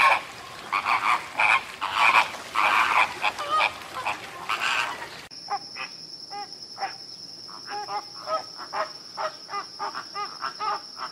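Flamingos calling: short, loud honking calls for about five seconds, then a sudden change to a faster run of short grunting calls. A steady high-pitched whine sits under the later calls.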